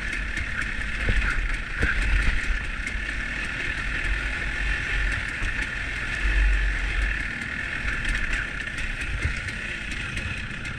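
Dirt bike riding a rocky trail, its engine running steadily under way, with wind buffeting the helmet-mounted microphone in gusts and scattered sharp ticks of stones and the bike jolting over the ground.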